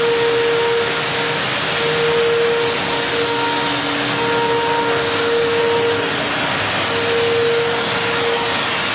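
Steady, loud rushing noise of a running motor-driven machine, with a hum that fades in and out every second or two.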